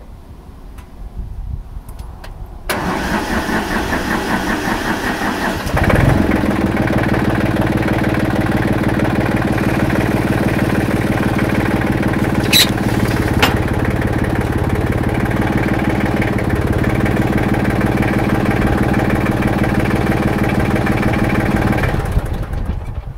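1985 White Field Boss 31 tractor engine starting about three seconds in and stepping up louder at about six seconds. It then runs steadily and is shut off near the end.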